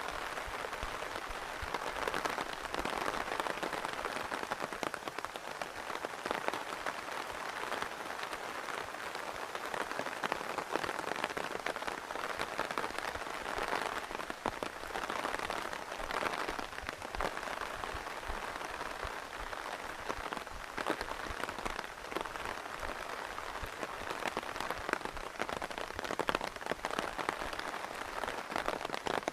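Steady rain falling, an even hiss dotted with many close drops ticking and pattering.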